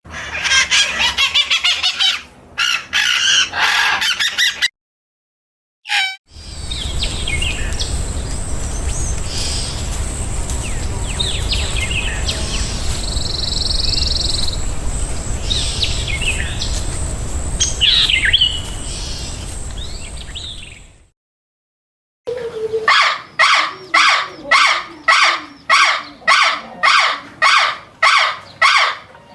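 Wild birds chirping and calling in three separate stretches with sudden silent gaps between them. The first stretch is dense chirping. The middle one is outdoor ambience with scattered calls and a steady high thin tone. The last is a call repeated about twice a second.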